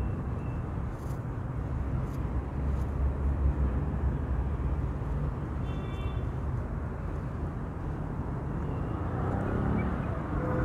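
Steady rumble of city street traffic, with a brief high-pitched chirp about six seconds in.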